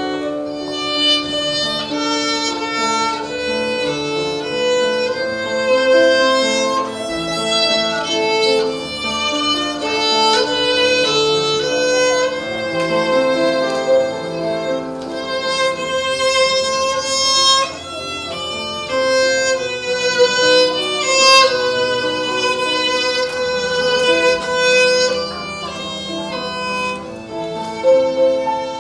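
Violin playing a slow melody of held notes over a lower accompaniment.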